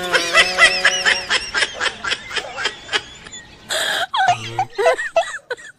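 Laughter: a long run of quick, short ha-ha bursts, with a brief noisy burst about four seconds in.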